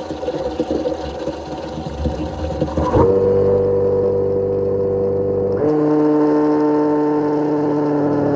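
Brushless DC motor spinning a 3D-printed centrifugal water pump. A rushing noise comes first, then about three seconds in the motor starts with a steady whine, and a little over halfway through it steps up to a higher pitch as the pump speed and discharge pressure rise.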